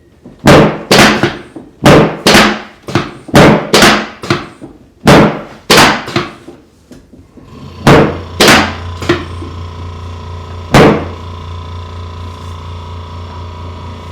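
A run of about a dozen sharp, loud thuds at an uneven pace, from hands or a tool striking during a chiropractic treatment. About eight seconds in, a steady low electric hum starts and carries on under the last thuds.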